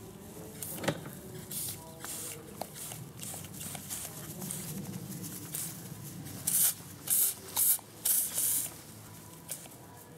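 Hose-gun spraying water in short hissing squirts: fainter ones in the first few seconds, then a quick run of about five loud squirts just past the middle.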